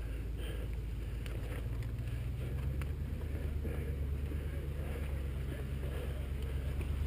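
Wind buffeting the microphone over the rumble of a mountain bike's tyres rolling across bare sandstone, with scattered light clicks and rattles.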